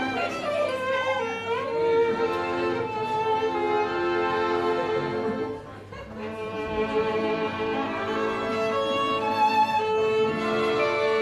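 Violin and piano accordion playing a csárdás, the violin holding long melody notes over the accordion, with a brief drop in loudness about halfway through.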